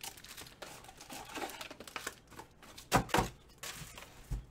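Foil wrapper of a Select basketball card pack crinkling as it is torn open and the cards handled, with two sharp knocks about three seconds in and a soft thump near the end.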